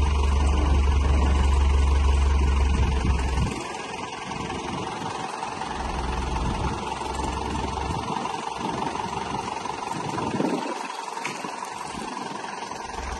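John Deere loader tractor's diesel engine idling steadily, with a heavy low rumble for the first three and a half seconds that then cuts off, leaving the idle quieter.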